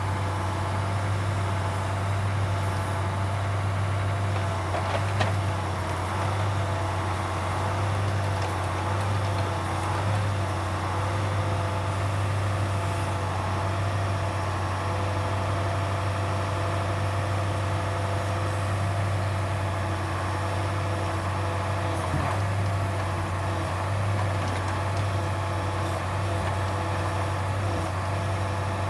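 Truck engine running steadily to power an OMTL 70-02 hydraulic timber loader crane during log loading, a constant low drone with higher tones that rise and fall a little as the crane works. A couple of faint knocks come about five seconds in and again past twenty seconds.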